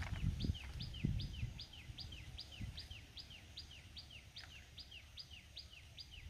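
A bird calling over and over in an even rhythm, about two and a half calls a second, each a short high note followed by a falling one. A low rumble sits underneath, strongest in the first second or so.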